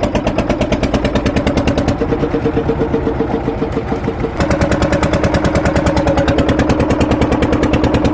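Wooden fishing boat's engine running with a steady, rapid chugging beat. It gets louder, with a slight change in pitch, about four seconds in.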